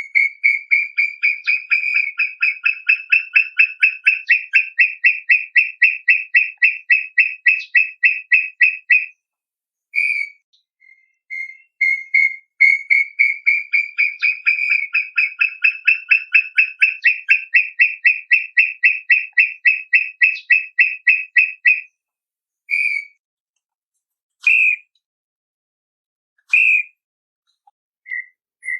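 Brown tinamou singing: two long series of clear whistled notes, about four to five a second, the pitch rising a little at first and then holding, separated and followed by a few single notes.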